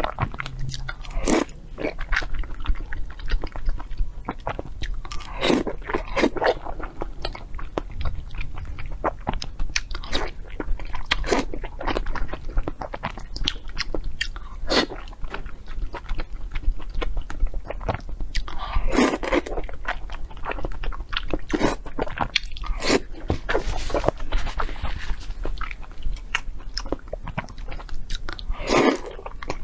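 A person eating close to the microphone: chewing and biting with irregular mouth clicks throughout, and a louder bite every few seconds.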